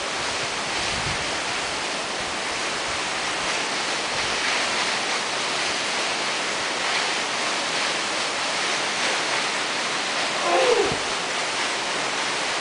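Steady rushing of falling water from a nearby waterfall, an even hiss-like wash. About ten seconds in comes a short voice sound that falls in pitch.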